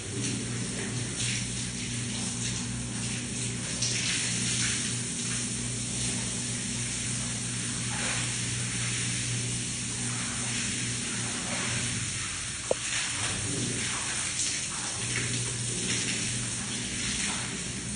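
Shower water spraying and splashing onto a tiled floor, with uneven splashes over a steady low hum. A single short sharp click about two-thirds of the way through.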